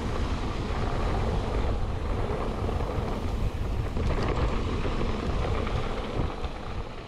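Wind buffeting a body-mounted camera microphone while a mountain bike rolls fast over a rutted dirt trail, tyres and frame rumbling, with a few rattles over bumps about four seconds in.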